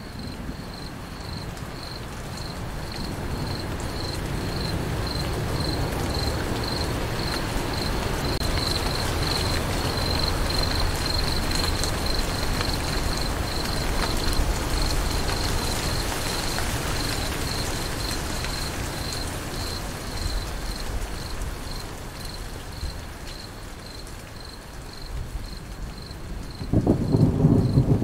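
Crickets chirping in a steady, even pulse over a wash of falling rain that swells and then eases. Near the end, a loud low rumble of thunder breaks in.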